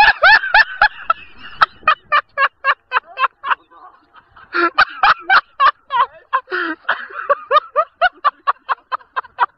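Water birds calling, a quick series of short calls repeated about three times a second, with a brief break a little before halfway.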